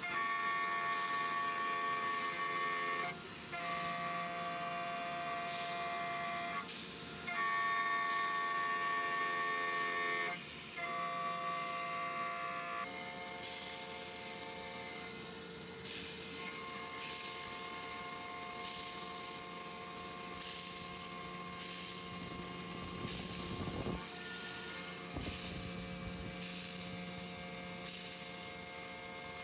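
2 kW CNC router spindle at 12,000 rpm driving a 6 mm carbide end mill through a mild-steel block on facing passes: a steady high whine with the cutter's singing tones, dipping briefly every few seconds.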